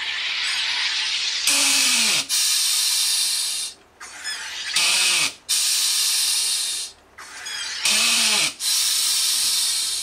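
Home soda maker carbonating a bottle of water: three presses of the lever, each a loud rush of CO2 hissing into the bottle that opens with a short falling tone. A softer hiss comes before the first press, and the last press trails off in a fading hiss.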